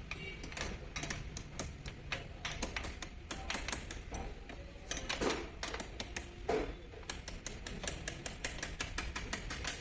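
Ratchet wrench clicking in quick irregular runs as a motorcycle's rear axle nut is loosened, with a couple of louder knocks midway.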